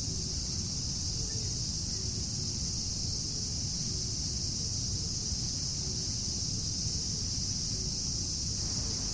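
Cicadas droning: a continuous, even high-pitched hiss, over a steady low rumble of outdoor ambience.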